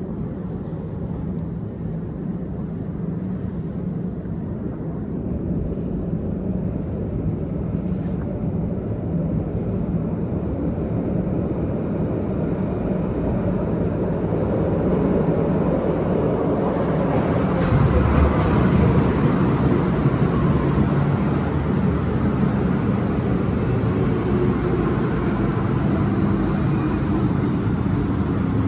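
MTR M-train electric multiple unit running, with a steady rumble and a motor whine that rises in pitch and grows louder from about halfway as the train gathers speed. These are the train's traction motors, which on this set make an unusual howl.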